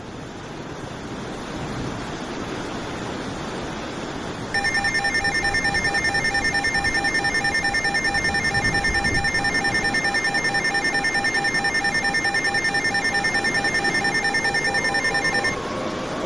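A steady rushing noise, then an electronic alarm tone pulsing rapidly and evenly for about eleven seconds before it cuts off. Near the end a synthesized outdoor warning siren starts winding up, rising in pitch.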